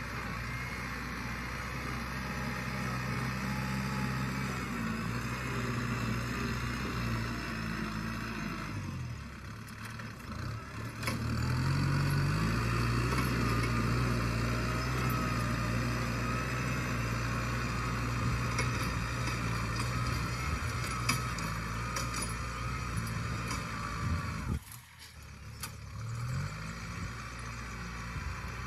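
Diesel tractor engine running steadily under load while pulling a disc plough through dry soil. Twice the sound drops away briefly and then comes back with the engine pitch rising.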